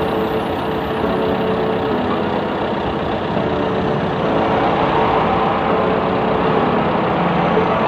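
Heavy engine of a large container forklift running steadily with a constant hum, a little louder from about four seconds in.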